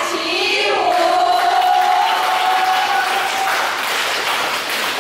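A group of women's voices joining in one long held cheer, ending about three and a half seconds in, over applause and crowd noise.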